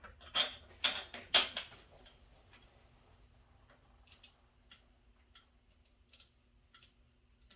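Bolt and nut being fastened on the pressure washer's plastic frame: three loud knocks close together, then light, even clicks roughly every two-thirds of a second as the nut is turned down.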